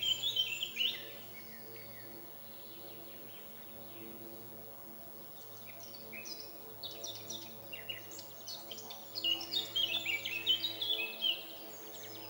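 Small bird singing in bursts of quick, stepwise-falling chirps, in the first second and again from about six seconds in, over a steady low hum.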